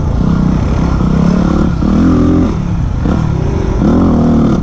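Yamaha WR250X's single-cylinder four-stroke engine running under throttle on dirt, revving up and dropping back twice, about two seconds in and again near the end.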